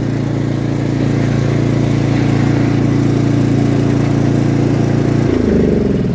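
Cub Cadet XT1 riding lawn mower's engine running steadily; a little over five seconds in, its pitch drops as it is throttled down.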